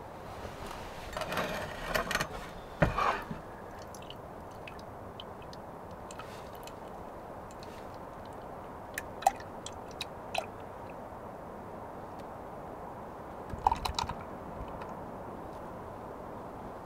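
Short clinks and knocks of utensils being handled, in three brief clusters, about a second in, around nine to ten seconds and near fourteen seconds, over a steady hiss.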